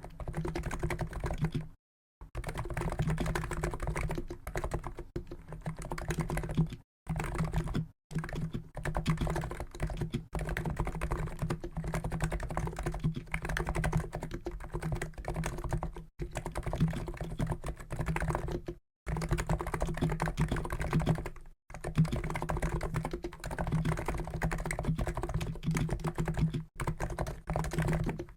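Continuous typing on a COX Endeavour keyboard with Noppoo NiZ electro-capacitive (EC) switches of 50 g: a dense run of keystrokes broken by a handful of brief pauses.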